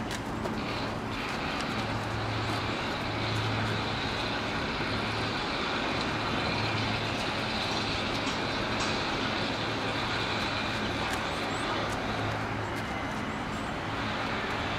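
Steady background drone: an even hiss with a low hum underneath that swells and fades slightly.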